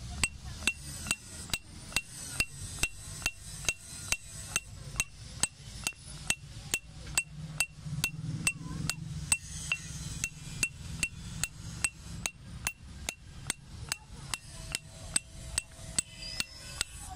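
Hammer striking a chisel to carve out the inside of a stone mortar (hawan dasta), in an even rhythm of a little over two blows a second, each blow ringing briefly.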